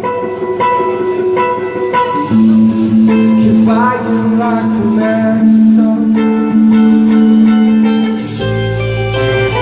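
Live band playing, with guitar to the fore and notes bending in pitch partway through; a low bass note comes in near the end.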